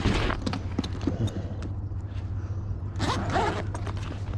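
A soft tool bag being handled and set down on the sheet-metal top of a package HVAC unit. Two short rustling, scraping bursts come at the start and about three seconds in, with light clicks between them and a steady low hum underneath.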